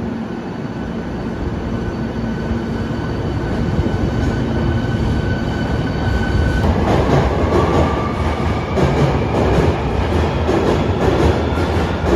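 Subway train pulling out of an underground station: a steady hum while it stands, then, about seven seconds in, the rising whine of its traction motors and rail clatter as it accelerates away.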